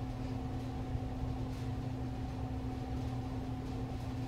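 A steady low hum from a running machine, like a fan or air conditioner, with a faint hiss over it. It holds an even level throughout.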